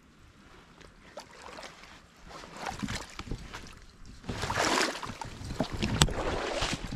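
Footsteps wading through a creek, water splashing and sloshing with each step, growing louder from about halfway through, with a sharp knock near the end.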